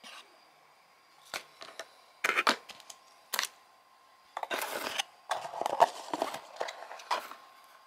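Handling noise from a cardboard box and the loose wires and antenna inside it: scattered clicks and short rustling scrapes, busiest in the second half.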